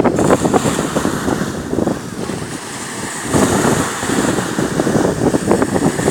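Wind buffeting the microphone over the wash of sea surf; the gusts ease for about a second midway.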